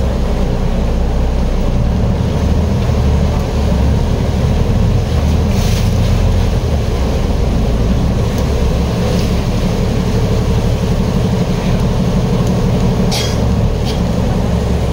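Khlong Saen Saep canal passenger boat underway, its diesel engine running with a loud, steady low rumble. Two brief sharp noises cut through, about six and thirteen seconds in.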